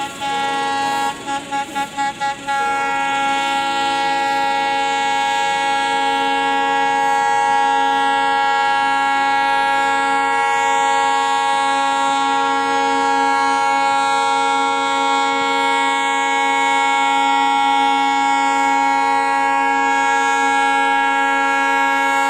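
WDM-3D diesel locomotive's air horn: a few quick toots, then one long steady blast held for about twenty seconds, cut off at the end.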